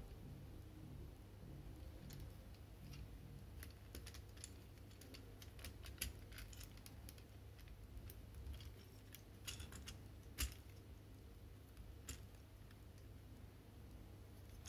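Faint scattered clicks and taps of small plastic parts on a Robots in Disguise Mirage GT Transformers figure being moved by hand through its transformation, the sharpest about six and ten seconds in.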